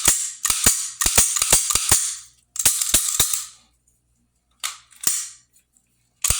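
A reassembled Sig Sauer P250 9mm pistol being worked by hand: a fast run of sharp metal clicks with short sliding scrapes, coming in clusters, with a pause of about a second near the four-second mark.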